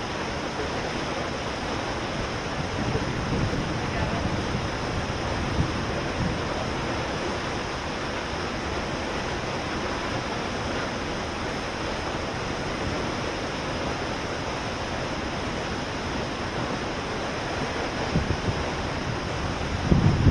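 Waterfall, a steady, even rushing of falling water.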